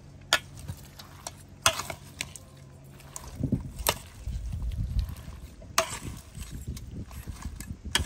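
A metal spoon knocking sharply against a stainless steel mixing bowl a few times as seafood papaya salad is stirred. From about halfway, a soft, busy rustle of the salad being tossed by hand.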